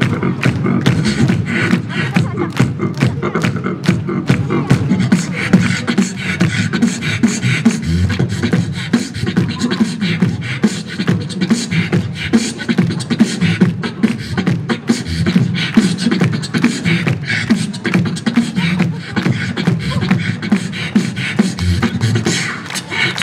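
Beatboxing into a handheld microphone, amplified through PA speakers: quick sharp clicks and hi-hat-like hisses over a continuous deep bass line, with a fast run of clicks at the start.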